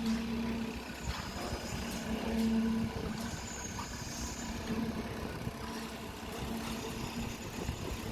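Machinery running during a concrete pour: a steady engine-like rumble with a pitched drone that swells and fades several times.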